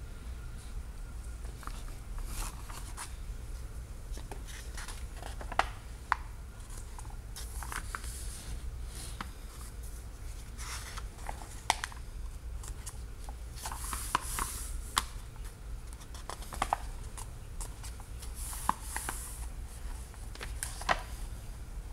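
Stiff parchment-style pages of a large book being turned and handled: scattered paper rustles and short sharp clicks, over a steady low hum.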